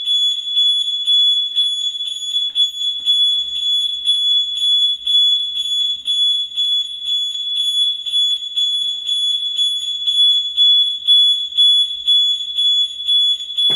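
Volkswagen Golf V anti-theft alarm siren sounding in its first, factory tone setting, set off by a hand reaching into the locked car: a single loud, high-pitched tone that flutters quickly in loudness and cuts off near the end.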